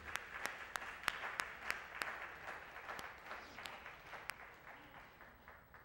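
Congregation applauding, with one person's loud claps standing out at about three a second; the applause dies away over the last second or two.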